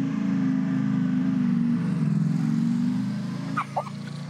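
Sport motorcycle engine running steadily, dropping in level about three seconds in.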